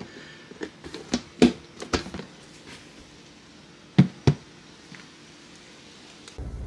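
Plastic Tupperware-style storage container being handled and flipped over on a countertop: a run of light knocks and taps, then two sharper knocks about four seconds in.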